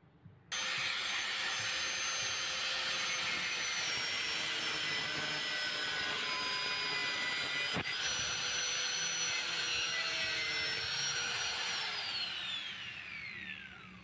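Small cordless angle grinder running at speed with a steady whine, then winding down in pitch as it is switched off and coasts to a stop near the end.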